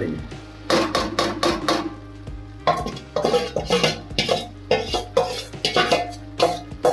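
Slotted steel spatula scraping and clanking against a steel bowl as potato pieces and mogri (radish pods) are tipped out of it into a steel kadai of gravy: a run of irregular metal knocks and scrapes.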